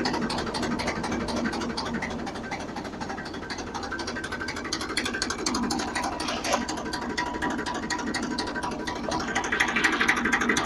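Homemade potato harvester's chain-and-slat transporter, gearbox and PTO shaft running under tractor power, with a steady rapid clatter of chain and metal slats, growing a little louder near the end.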